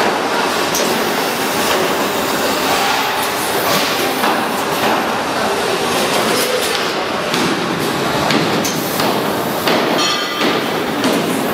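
Loud, steady clattering din of packaging machinery running on a factory floor, full of frequent knocks and clicks. A brief rapid buzzing comes about ten seconds in.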